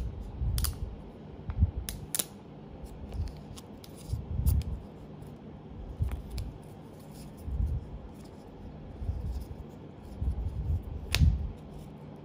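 Thin plastic protective film crinkling and crackling as it is peeled off an AirPods Pro charging case, with soft handling taps of the case in the fingers and one sharper click near the end.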